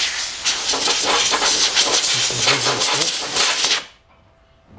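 Compressed-air blow gun hissing in repeated short blasts, blowing metal chips off a freshly milled housing and vise. The air cuts off with about a second left.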